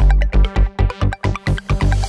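Electronic background music with a fast, steady beat.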